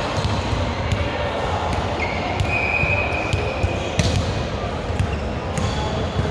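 Volleyball being hit and bouncing in a sports hall: several sharp slaps over a steady murmur of voices echoing in the hall. A high steady tone lasts about a second and a half, starting about two seconds in.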